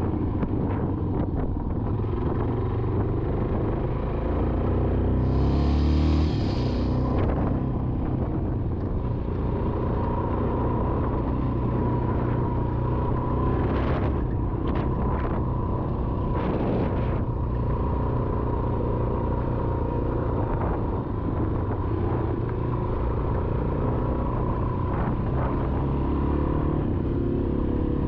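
Yamaha XT350 single-cylinder four-stroke dirt bike engine running under way on a dirt track, with a low rumble from wind and rough ground. The revs climb briefly about five seconds in, then fall back, and a few short knocks come midway through.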